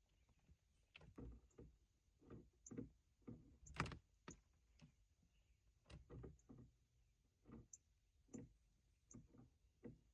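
Faint, irregular light taps, one to three a second, with one sharper tap just under four seconds in: a small bird pecking at the car's glass, typical of a bird attacking its own reflection.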